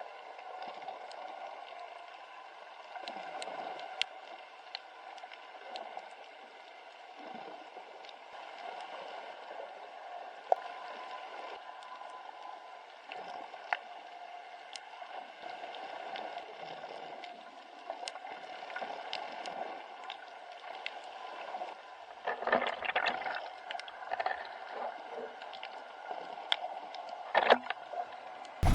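Muffled underwater sound picked up by a submerged camera: a steady low water hiss with scattered sharp clicks.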